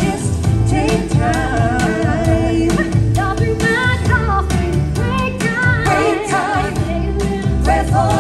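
Live pop song sung by performers at microphones, amplified through a sound system over drums and bass with a steady beat.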